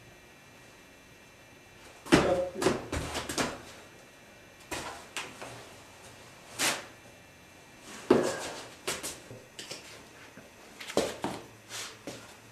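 Metal folding chair legs scraping and knocking on a concrete floor, with shoes scuffing, as someone tied to the chair jerks and scoots it along, in irregular bursts of a few knocks each.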